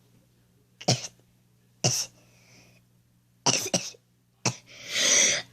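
About five short, sharp, cough-like bursts of breath, then a longer rising breath near the end, from a person whose nose is being tickled with a cotton swab to bring on a sneeze.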